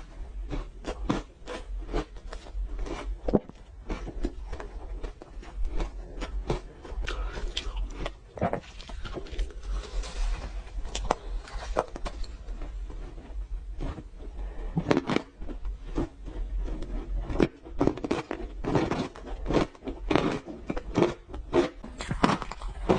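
Close-miked crunching and chewing of frozen orange ice: rapid, irregular crisp crunches as the ice is bitten and broken between the teeth.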